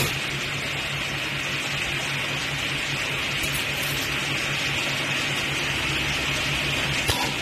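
Lampshade spot welding machine humming steadily with a constant hiss, with a short sharp weld shot at the start and another near the end as wire joints are spot welded.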